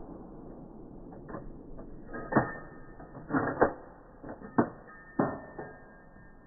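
Remington 700 bolt-action .308 rifle being fired and its bolt worked, heard slowed down: a string of sharp clicks and knocks. Faint steady tones sound underneath toward the end.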